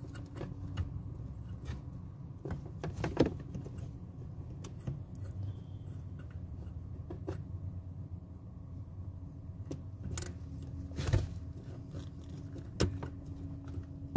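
Scattered light clicks and knocks of metal parts being handled as an accelerator cable is fitted to a truck's accelerator pedal linkage, over a low steady hum. The loudest knocks come about three seconds in and again after about ten seconds.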